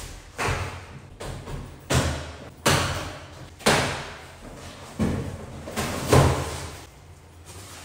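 Cardboard moving boxes being opened and unpacked: a run of sudden thumps and rustles from box flaps and contents being handled, about one a second, each with a short echo from a bare tiled room, easing off near the end.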